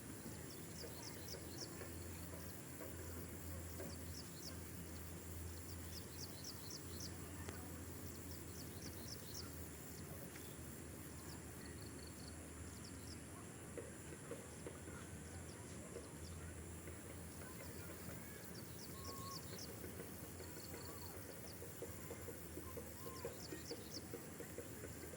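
Faint outdoor ambience of birds: clusters of short, high chirps come back every few seconds, over a steady low hum.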